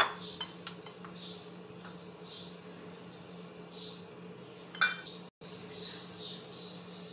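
Dishes clinking as a bowl is set down at the start and again about five seconds in, with a spoon scraping spice paste on a ceramic plate in between.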